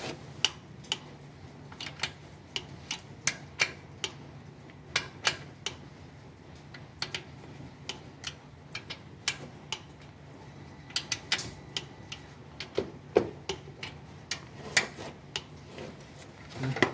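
Hand ratchet on a long socket extension clicking in short, irregular runs as the balancer shaft mounting bolts of a Toyota 2AZ engine are tightened from below to torque and then turned a further 90 degrees, over a low steady hum.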